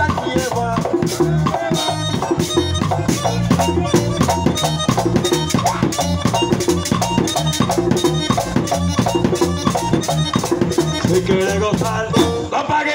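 Live Latin dance band playing an instrumental passage through PA speakers: a fast, steady drum and percussion beat over a strong bass line, with amplified guitar.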